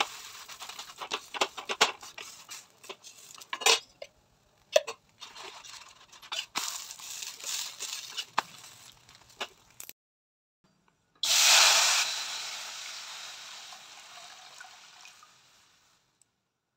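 Steel spatula scraping and tapping against a paratha on an iron tawa: a run of scrapes and sharp clicks. About eleven seconds in, hot water poured into a steel kadhai sets off a sudden loud splashing rush that fades away over several seconds.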